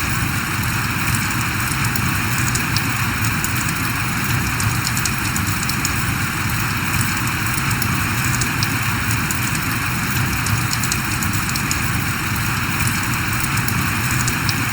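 Steady rain falling, a dense even hiss with many small drop ticks landing on surfaces.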